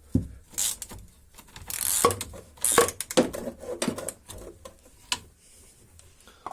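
Wrench tightening the nut of a new Opel anti-roll bar link: irregular metallic clicks and short scrapes, loudest about two and three seconds in.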